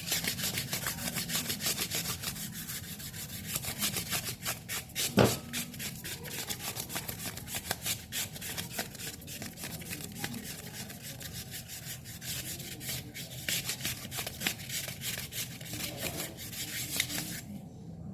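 Very fine wet-and-dry sandpaper rubbed by hand in quick back-and-forth strokes along a fan motor's shaft, polishing it so the bushing can turn freely. There is one sharper knock about five seconds in.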